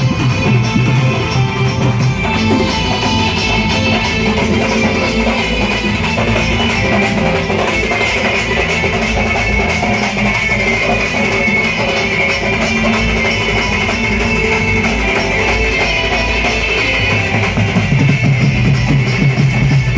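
Live band music at a sound check: a drum kit and guitar playing continuously.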